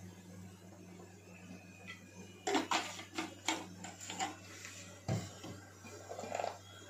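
Low steady hum, then from about two and a half seconds in a run of light, irregular clinks and knocks of kitchen utensils and cookware.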